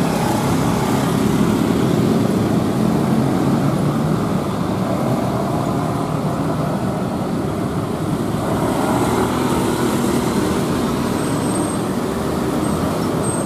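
Busy road traffic at close range: a stream of motorcycles and scooters, then cars, moving through with their engines running in a steady mixed hum.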